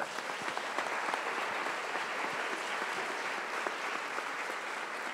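Audience applauding: many hands clapping at once in a steady wash.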